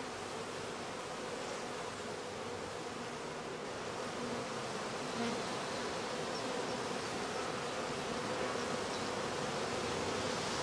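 Honeybee colony buzzing on a comb at an open hive: a steady hum of many bees that gets a little louder in the second half.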